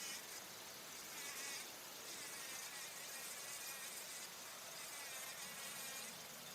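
Bumblebee buzzing in flight, its hum wavering in pitch and coming and going in several stretches before easing off near the end.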